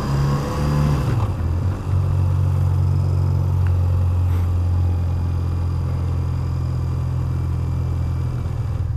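BMW Airhead air-cooled flat-twin motorcycle engine running on the road. Its pitch rises for about the first second, breaks briefly about a second and a half in, and then it runs steadily.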